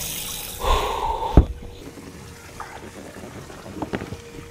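Water gushing into a boat's live well, which stops about a second and a half in, right after a single sharp knock. After that come a few faint clicks of handling over a faint steady hum.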